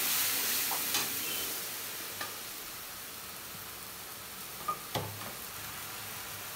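Oil with turmeric and a splash of water sizzling in an aluminium karahi, the sizzle fading over the first few seconds as the water cooks off, with a few light clinks of a metal slotted spatula against the pan.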